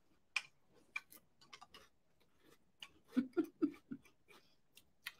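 Mouthful of Cap'n Crunch Christmas Crunch cereal being chewed: scattered sharp crunches and clicks, with a few short low hums about three seconds in.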